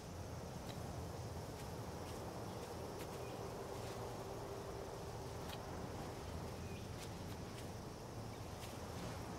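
Outdoor ambience of wind and insects: a steady low rumble under a faint, even, high insect drone, with scattered faint ticks.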